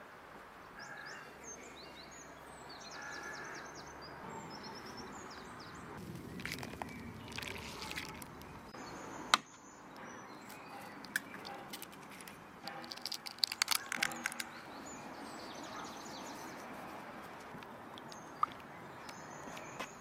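Eggs being cracked into a wooden bowl of flour: one sharp crack about nine seconds in, and a cluster of taps and clicks a few seconds later. Small birds chirp in the background.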